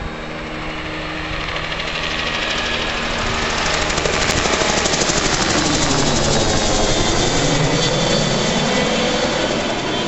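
A low-flying crop-spraying helicopter fitted with spray booms passes overhead. Its rotor beat and engine grow louder to a peak midway, then the pitch drops as it moves away.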